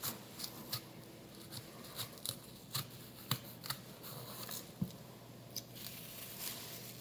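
Kitchen knife slicing through apple onto a cutting board: a dozen or so short, sharp taps at an uneven pace.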